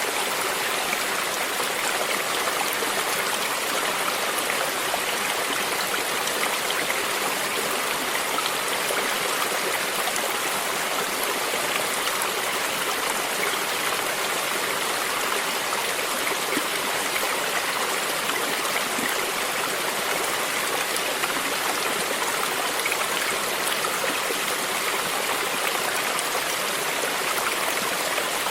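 Stream water flowing and lapping steadily, an even rushing noise that does not change.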